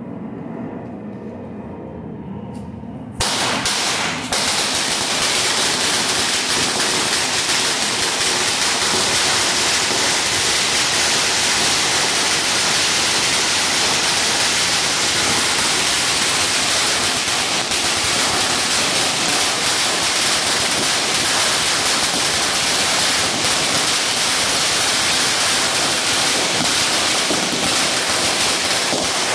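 A Mothers brand 2000-wala string of Sivakasi firecrackers going off. After about three seconds of lesser noise it bursts into one unbroken, rapid rattle of loud bangs that lasts about 26 seconds, then dies away quickly.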